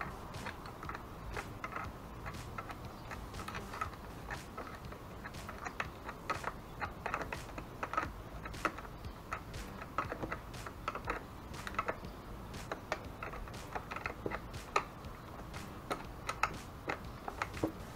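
Irregular light clicks and taps of hands working motorcycle wire connectors and small fittings by hand.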